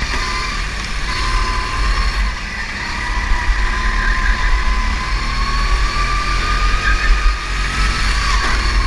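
Go-kart engine heard onboard, revving high, its pitch dropping briefly as it slows for a corner and then climbing steadily as it accelerates out, with a second dip near the end. Heavy wind buffeting on the microphone underneath.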